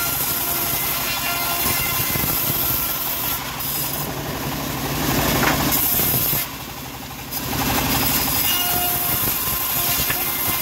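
Home-built bandsaw mill running, its blade cutting lengthwise through a teak board. The sound drops for under a second about two-thirds of the way through, then the saw is cutting again.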